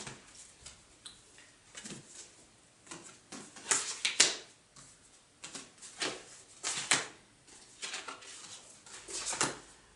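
Picture cards being handled and set down in a plastic sorting case on a table: several irregular sharp taps and card slaps, the loudest near the middle, with soft paper rustling between them.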